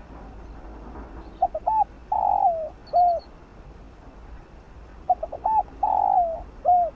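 Spotted dove cooing its song twice, each phrase a few quick short notes, then a longer held coo and a closing note.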